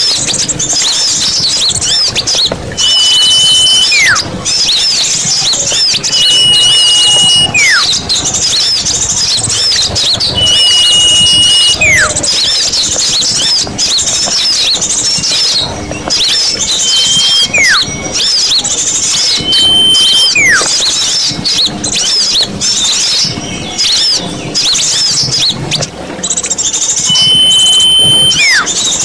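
Bird-lure recording of small birds: a loud, dense chatter of many chirping birds, with a clear whistle held steady and then a falling whistle repeated every few seconds.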